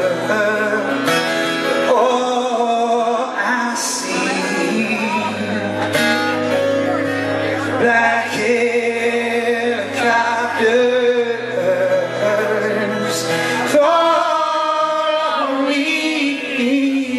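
Live solo acoustic song: a man singing into a vocal microphone while strumming a twelve-string acoustic guitar.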